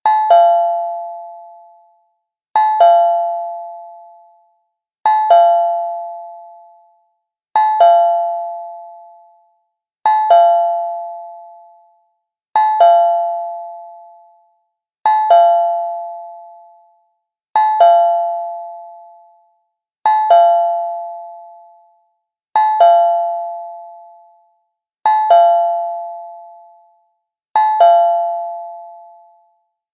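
Cartoon doorbell sound effect: a quick double chime that rings and fades away, repeated about every two and a half seconds, twelve times in a row.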